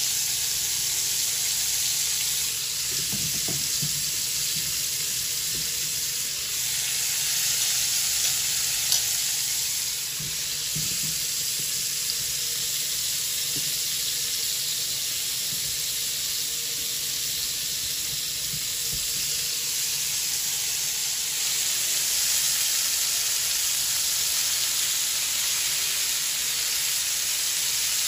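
Brown butter sizzling steadily in a frying pan, with asparagus spears laid into it, and a few soft knocks of handling.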